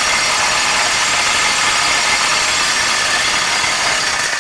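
Twin three-phase electric vibrators under a Vibco Grid Top settling table running steadily, shaking the roller-conveyor table top. The level eases slightly near the end.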